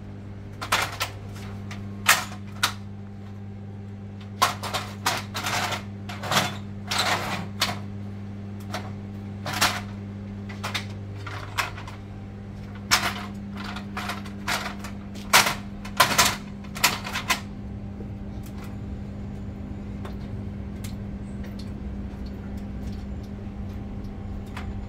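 Aluminium multi-position folding ladder being unfolded and set up: a string of sharp metal clanks and clicks from its hinges and rails, which stop about two-thirds of the way through. A steady low hum runs underneath.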